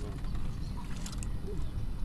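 Steady low rumble of wind on the microphone over open water, with faint distant voices.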